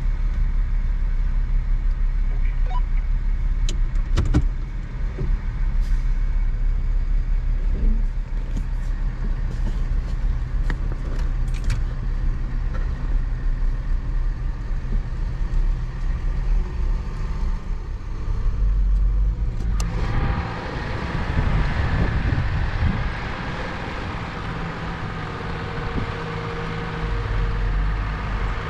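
A vehicle driving slowly: a steady low engine and road rumble with scattered clicks and rattles. About twenty seconds in, a brighter hiss comes up over the rumble.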